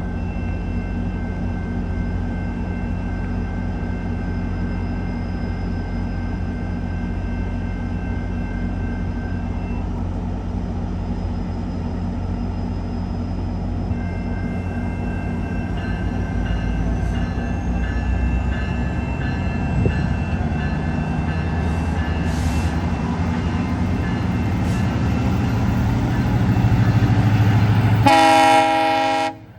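GO Transit diesel commuter train running steadily, with a steady engine hum and a slowly rising whine. About a second before the end, a loud train horn sounds briefly and cuts off abruptly.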